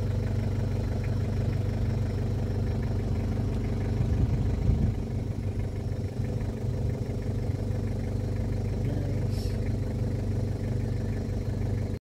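An engine idling steadily, with a brief swell of low rumble about four to five seconds in.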